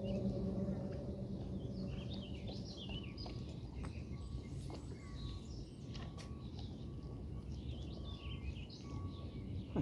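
Small birds chirping and twittering over a steady low background rumble, with a few faint clicks and a sharper knock at the very end.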